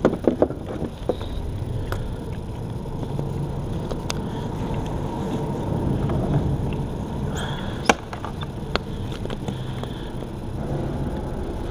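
Steady low rumble of road traffic on the bridge overhead, with a few sharp clicks and knocks from gear being handled on the kayak, the loudest just after the start and about eight seconds in.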